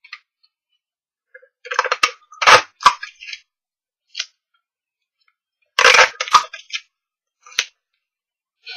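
Clear adhesive tape being pulled from a desktop dispenser and handled against cardstock: short bursts of crackling and rustling with a few sharp clicks, the loudest about two and a half seconds in and again about six seconds in, with quiet gaps between.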